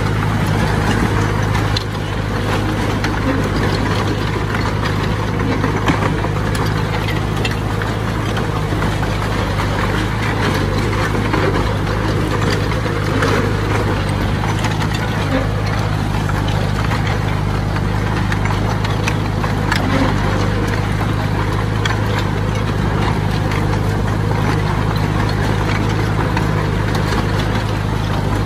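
Engine of heavy earthmoving machinery running steadily, with occasional brief knocks.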